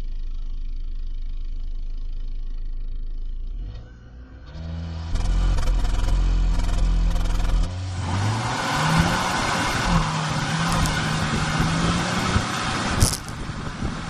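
2018 Audi A5 engine idling steadily, then brought up to a loud, held high rev about five seconds in and released into hard acceleration, its note stepping up and dropping at gear changes as wind and road noise build; a sharp click comes near the end, then the sound drops back.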